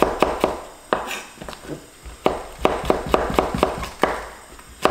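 Chef's knife slicing a cucumber into strips on a wooden cutting board: a run of sharp knocks as the blade meets the board, uneven in rhythm and coming faster in the second half.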